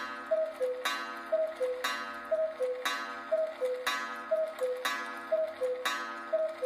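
Cuckoo clock striking twelve. About once a second a gong strike rings on, followed by the two-note cuckoo call, which falls from the higher note to the lower.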